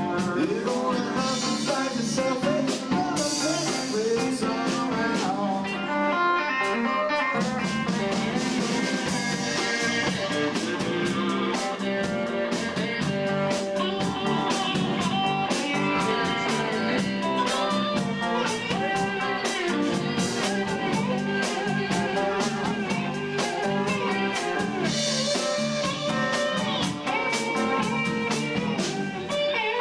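A live band playing a song on amplified electric guitars, bass guitar and drum kit, with a steady beat.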